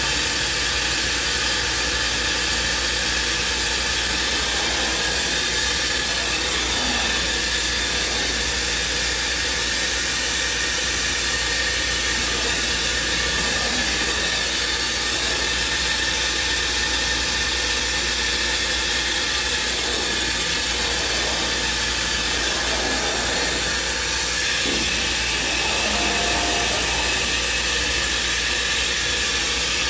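Thermwood five-axis CNC router cell running, with its head moving between cuts: a steady, loud rushing hiss of air from the dust extraction and vacuum system.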